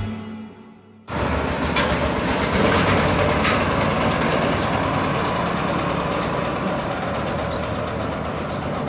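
An acoustic guitar's last chord dies away. About a second in, an engine starts up, cutting in suddenly, and idles steadily.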